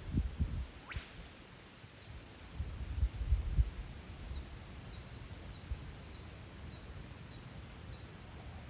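Birds calling: a sharp upward-sweeping crack about a second in, then a quick run of short, high, falling notes, about four a second. A few low, dull bumps come near the start and again around three seconds in.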